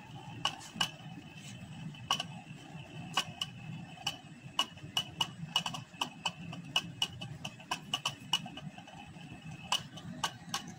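Hot water bath heating on a hot plate: the water in the glass beaker bubbles with a steady low noise while the glass test tubes standing in it tick and knock irregularly against the beaker, several clicks a second.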